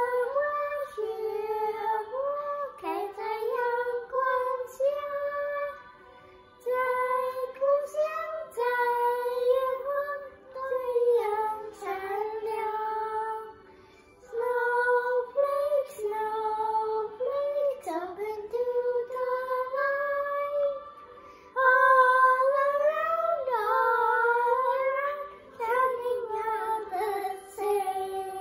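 Two boys singing a song together, a melody in four phrases with short pauses between them.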